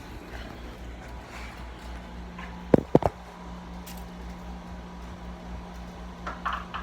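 Air-conditioning unit running with a steady hum, and two sharp knocks in quick succession about three seconds in.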